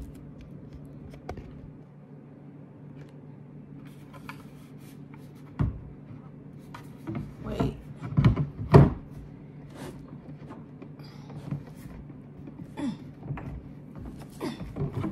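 Hard plastic parts of a portable sink knocking and rubbing together as the wash basin is worked onto its stand column, with scattered knocks and a louder cluster a little past the middle, over a steady low hum.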